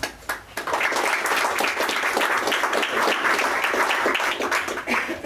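Audience applauding: a few scattered claps that build within the first second into steady applause, which stops near the end.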